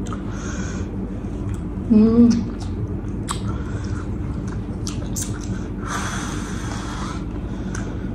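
Eating sounds from a spicy fried chicken wing: wet chewing and lip smacks with sharp clicks, and two breathy hisses, one near the start and a longer one about six seconds in, drawn in through the mouth against the chilli heat. A brief murmured voice comes about two seconds in.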